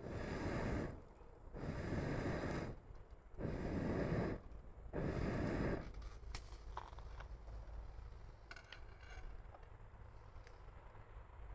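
Four long breaths blown into a campfire, each a rush of air about a second long, coming about every one and a half seconds. Then the burning wood crackles with scattered small pops.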